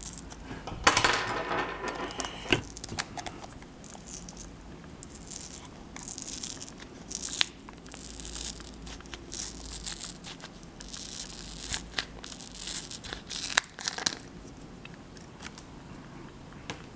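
Original battery of a Palm M515 PDA being pried off the circuit board it is glued and taped to. The adhesive gives with scraping and tearing sounds, and the metal pry tool clicks against the case in irregular bursts, with a longer tearing scrape about a second in.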